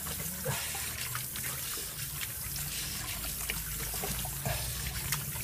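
Tap water running into a sink, with hands splashing and scooping it onto the face in many small splashes: rinsing the face after a straight-razor shave.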